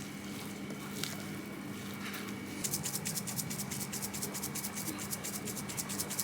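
Quick rhythmic scraping strokes, about seven a second, starting about two and a half seconds in, over a steady faint hum.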